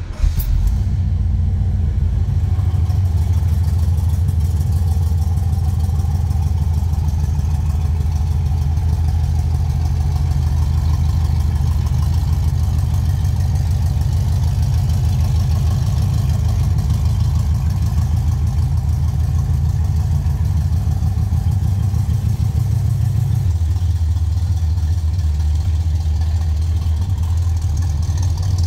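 1970 Chevrolet Chevelle SS tribute's V8 engine starting at the turn of the key and settling into a loud, steady idle with a lumpy, even pulse.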